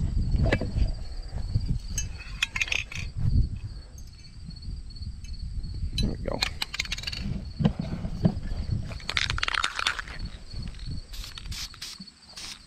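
Handling and rustling noise with a few light metal clinks as a steel engine bracket is hung on a wire on a tree branch. Insects chirp steadily in the background.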